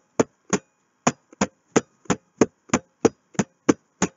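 A steady train of short, sharp knocks, evenly spaced at about three a second, a dozen in all, with near silence between them.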